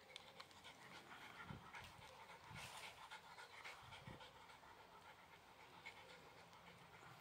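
Shiba Inu panting faintly with its mouth open.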